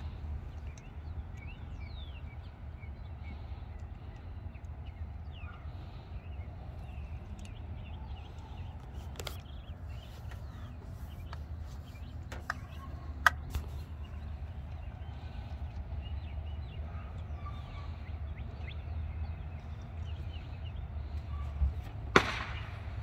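Birds chirping faintly over a steady low rumble, with a few sharp clicks and knocks, the loudest about halfway and a second before the end.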